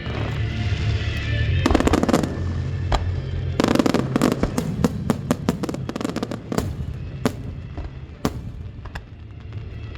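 Fireworks going off: a dense cluster of sharp cracks about two seconds in, then a long run of rapid crackling pops that thins out after about seven seconds, over background music.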